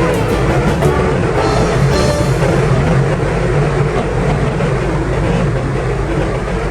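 Loud background music with drums.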